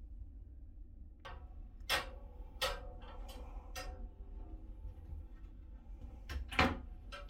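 Short sharp clicks and knocks of a cabin bathroom door and its fittings being handled, a handful in the first few seconds and a louder pair near the end, over a steady low hum.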